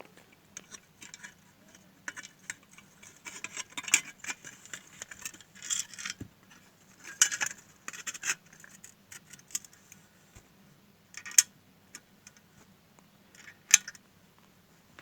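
Small metallic clicks and scrapes from tools and parts as screws in a sewing machine foot pedal are tightened back up. The clicks come in irregular clusters, with two sharper single clicks near the end.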